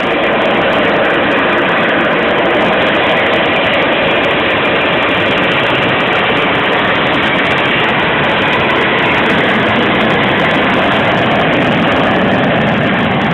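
F/A-18 Hornet's twin jet engines running in afterburner, a loud, steady rushing roar.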